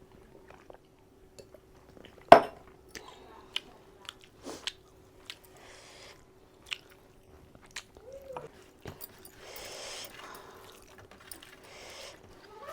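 Close-up eating sounds: chewing and lip smacks, with a sharp loud click a little over two seconds in and several hissing slurps later on.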